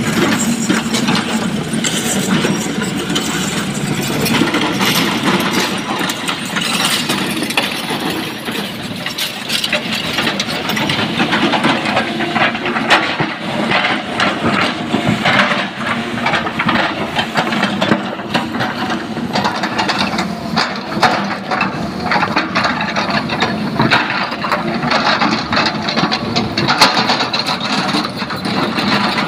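Sany hydraulic crawler excavator working, its diesel engine running steadily under load as the steel bucket digs and scrapes through broken quarry rock, with many short knocks and clatters of stones.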